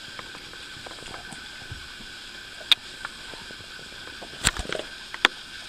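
Three sharp clicks and knocks spread over a few seconds, the loudest about two-thirds of the way in, over a steady faint hiss.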